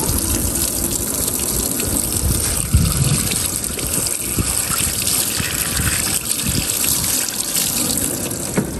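Tap water running steadily into a stainless-steel sink as fish are rinsed under it. There is a short knock about three seconds in and another near the end.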